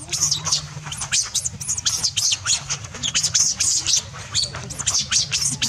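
Rapid, very high-pitched squeaky animal calls, each a short downward slide, several a second, over a steady low hum.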